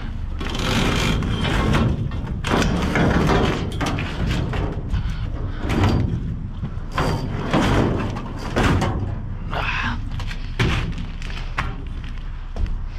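Lengths of metal conduit and flexible metal-sheathed cable clanking, scraping and knocking as they are pulled and shifted inside a steel dumpster, with repeated hollow thumps from the container.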